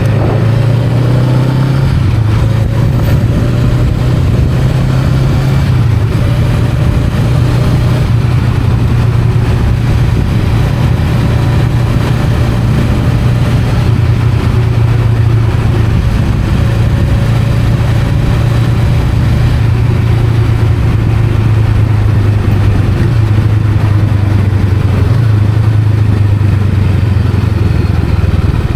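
Honda Rebel 500's 471 cc parallel-twin engine running steadily while the bike is ridden, its note drifting slightly up and down.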